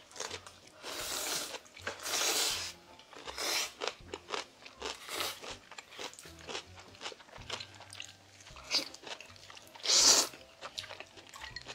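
Jjajang ramyeon noodles slurped from a bowl, several sucking slurps with the loudest near the end. Close-up chewing with small crunches and mouth clicks runs between them.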